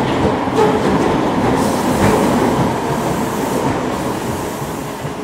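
Class 313 electric train running at a deep-level tube platform, a dense steady running noise that gradually fades away.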